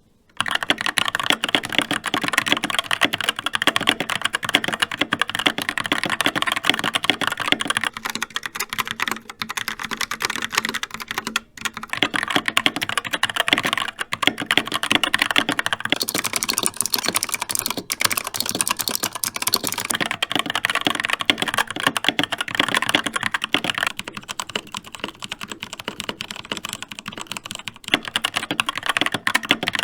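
Skyloong GK61 mechanical keyboard with brown switches being typed on fast and continuously, a dense clatter of key presses with a brief pause about eleven seconds in.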